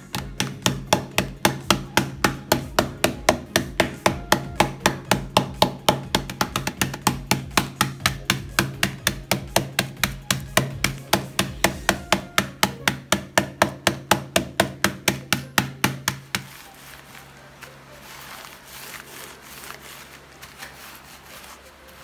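Wooden rolling pin pounding Oreo cookies in a plastic zip-top bag on a towel, rapid even thuds about four a second as the cookies are crushed to crumbs. The pounding stops about three-quarters of the way in, leaving a quieter rustle of the pin rolling over the bag.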